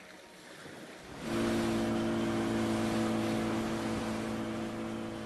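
Outboard motor of a rubber inflatable boat running steadily at speed, with water rushing and splashing along the hull; it comes in suddenly about a second in after a quiet start.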